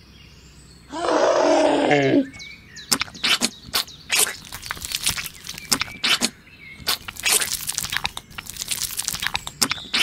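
A growling roar lasting about a second, the loudest thing here, then a run of irregular sticky clicks and crackles as slime is pulled and peeled off a plastic toy figure.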